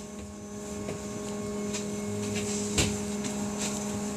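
Steady electrical hum inside a Belkommunmash AKSM-221 trolleybus cabin, with a low rumble that builds after about two seconds. Scattered clicks and rattles are heard, with a sharper knock near the end.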